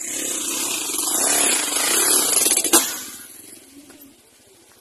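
A motor vehicle passing close by. Its engine noise swells, holds for about three seconds with a sharp click near the loudest point, then fades away.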